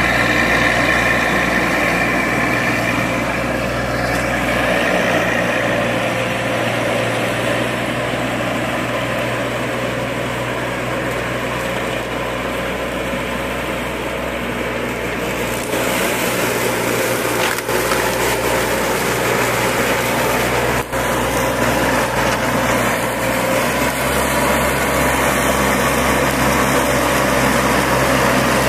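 Baroness LM320AF ride-on front-deck mower running steadily while cutting tall grass. The engine is fainter through the middle as the mower moves off and grows louder toward the end as it passes close.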